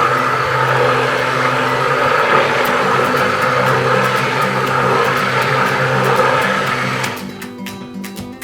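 Electric stick blender running steadily in soap batter, switching off about seven seconds in. Acoustic guitar music plays underneath.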